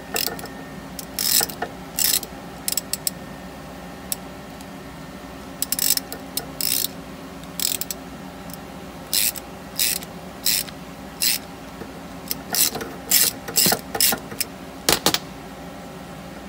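Ratchet wrench clicking in short strokes with pauses between, turning the forcing screw of a tie rod puller that is pressing a steering shaft bushing into its housing.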